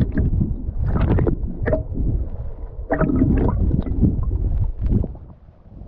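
Water gurgling and sloshing, heard muffled through an underwater camera housing, with splashy surges about a second in, around three seconds and near five seconds, then fading quieter near the end.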